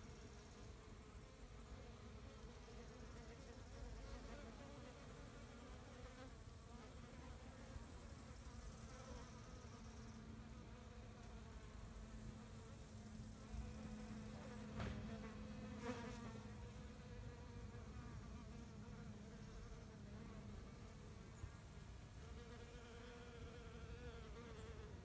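Bees buzzing faintly among flowers. One hums louder and closer for several seconds in the middle.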